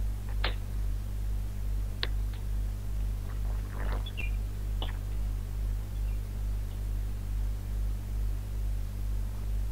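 Steady low electrical hum on an open microphone line, with a few faint short clicks.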